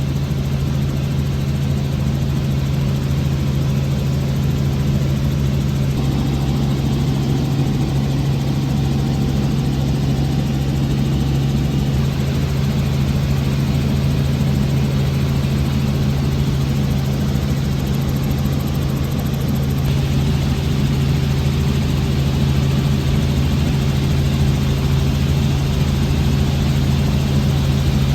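Helicopter engine and rotors running as a steady, unchanging drone with a constant low hum.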